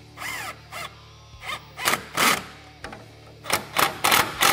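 Worm-drive hose clamp being tightened with a hand nut driver on a radiator coolant hose: a series of short scraping strokes, coming quicker toward the end.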